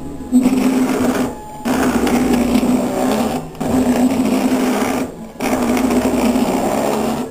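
Electric windscreen-wiper motor whirring as it drives a wiper arm back and forth. It runs in stretches of one and a half to two seconds with short breaks between them.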